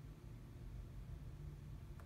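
Quiet room tone: a steady low hum with a faint hiss.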